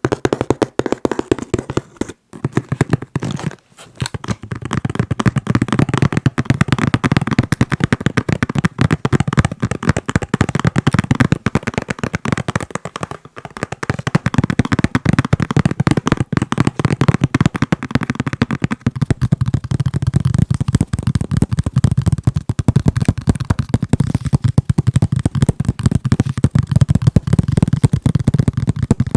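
Fingers tapping fast on a box, a dense run of quick taps with brief breaks near the start and about halfway. In the last third the taps sound lower and fuller.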